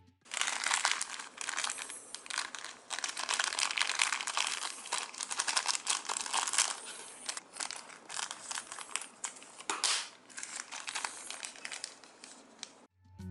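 Crinkling and crackling of something being handled: a dense run of small crackles that cuts in suddenly and stops shortly before the end.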